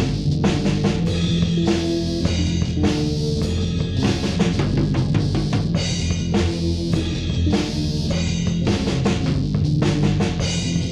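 Hard rock music with no vocals: a drum kit with bass drum and snare keeping a steady beat over sustained bass and guitar notes.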